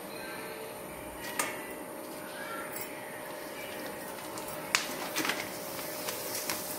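Pappadam deep-frying in hot oil in an iron kadai: steady sizzling, with a sharp click about a second and a half in and a louder one near five seconds, followed by a few smaller clicks.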